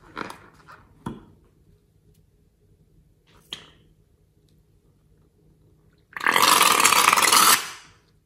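Yellow liquid and air squeezed out through the neck of a balloon into a glass bowl, sputtering out in one loud, noisy spurt about six seconds in that lasts about a second and a half. A few small squishes and taps come before it.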